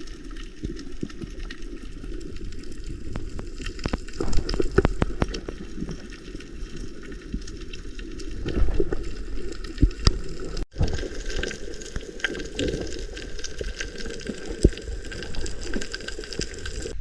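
Water rushing and sloshing, with scattered knocks and clicks; the sound cuts off abruptly once, about two-thirds of the way through, and resumes.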